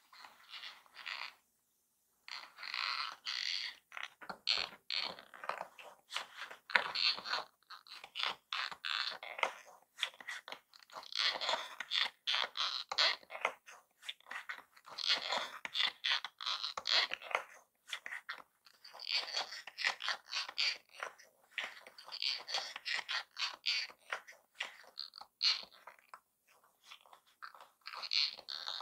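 Hand-cranked paper karakuri toy running: its paper and cardboard cams and gears scrape and crackle in uneven spurts as the crank wheel is turned and the paper train goes round its track.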